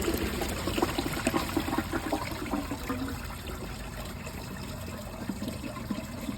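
2005 Crane Plumbing toilet flushing with a grocery bag and washcloth in the bowl: water rushing and gurgling, dying down gradually toward the end as the load clogs the bowl.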